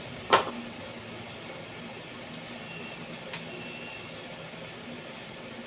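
Steady hiss of food cooking in a pan on the stove, with one sharp clack of a utensil against the pan about a third of a second in and a fainter tap a few seconds later.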